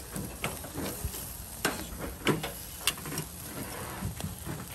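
Thin-cut ribs sizzling on a wire grill rack over hot charcoal: a steady crackle with scattered sharp pops, the loudest about halfway through.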